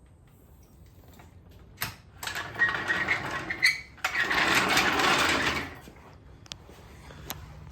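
DeWalt DCF899 cordless half-inch impact wrench running in two bursts of about a second and a half each, with a short pause between, on a Willys Jeep's lug nuts.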